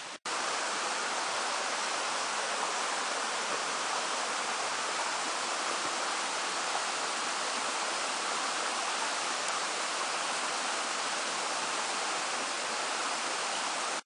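Steady rushing of a mountain stream flowing over rocks, an even hiss with no breaks.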